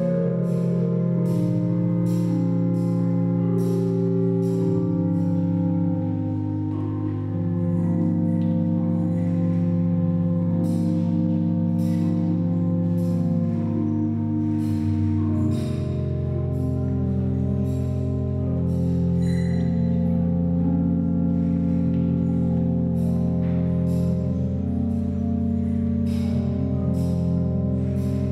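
Organ playing slow, sustained chords that change every few seconds. Light clicks sound about once or twice a second throughout.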